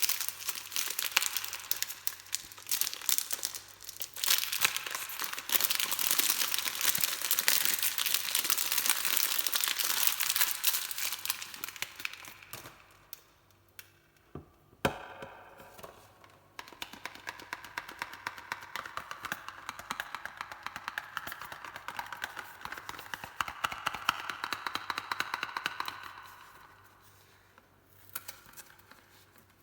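Soap packaging crinkling and tearing as it is unwrapped, in two long stretches with a quieter pause near the middle that holds a single sharp click.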